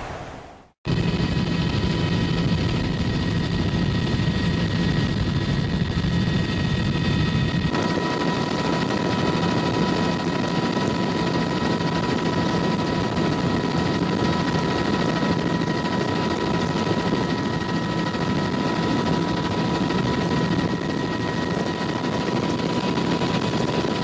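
Helicopter running in flight, heard from on board: a steady engine whine with several constant high tones over fast, dense rotor chop. It starts abruptly just under a second in, and its tone shifts slightly about eight seconds in.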